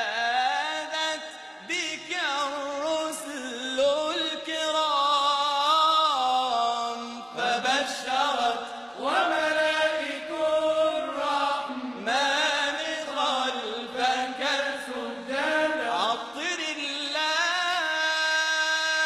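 Male voice singing an Arabic devotional song (inshad) in long, ornamented melismatic phrases over a sustained low backing, ending on a long held note.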